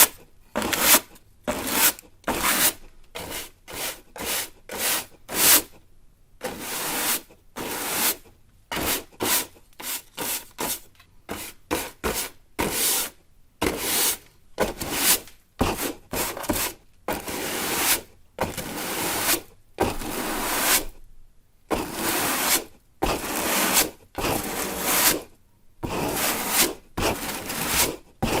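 A broom sweeping a floor in repeated strokes, each a dry bristly swish. Short, quick strokes come first, then slower, longer sweeps with brief pauses between them.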